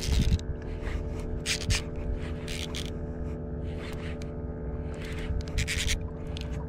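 A boat engine running with a steady hum and low rumble, with short hissy swishes every second or so over it.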